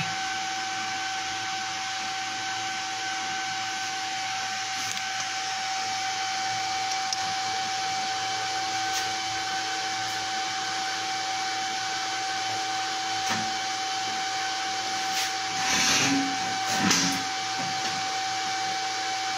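Steady hum and hiss of an electric fan running, with a constant whine. Two brief louder noises near the end.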